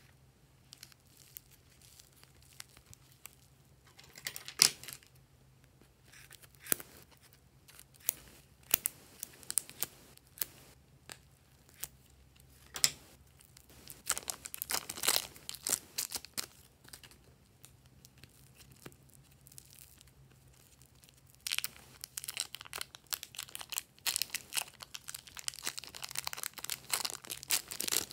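Thin plastic wrapping on packets of soft modelling clay crinkling and tearing as it is peeled open by hand. Scattered crackles, with one sharp snap about four and a half seconds in, build near the end into dense, continuous crinkling.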